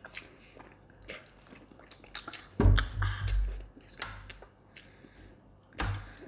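Close-up eating sounds: jajangmyeon black bean noodles being slurped and chewed, with small clicks of forks against plates. Louder low thuds come about two and a half seconds in and again near the end.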